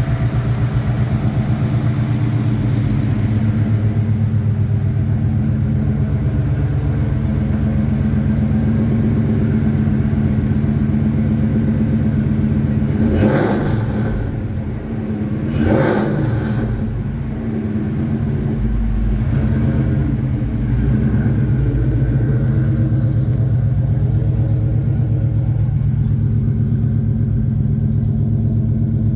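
Ford Coyote 5.0 L V8 idling steadily in a Fox body Mustang, with two short throttle blips about halfway through.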